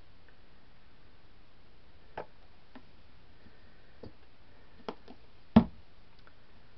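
Light clicks and knocks as pouring supplies are handled and set down on a worktable: a few scattered taps, then one sharp, louder knock about five and a half seconds in.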